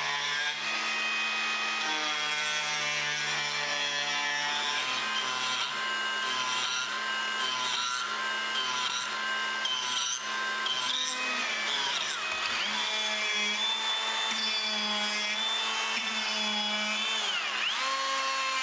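DeWalt 20V cordless die grinder running with a rotary burr, grinding and shaping a dry apple-wood spoon. Its motor whine is steady in level, but the pitch wavers and briefly sags a couple of times as the burr loads up in the wood.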